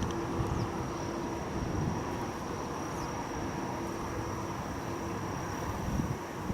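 Strong wind buffeting the microphone in low, uneven gusts, with a steady thin high-pitched tone running underneath.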